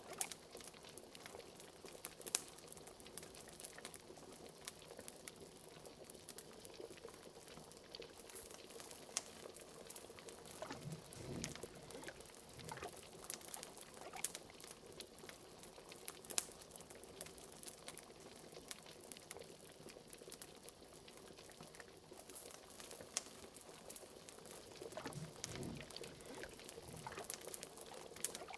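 A bubbling cauldron at a steady boil, with a fireplace crackling: many sharp little pops over a soft simmering bubble, and a deeper gloop about a third of the way in and again near the end.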